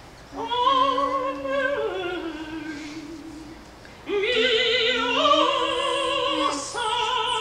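Female operatic voice, a mezzo-soprano, singing long held notes with wide vibrato, played through a computer's speakers. A first phrase steps down in pitch and fades, and a louder phrase begins about four seconds in.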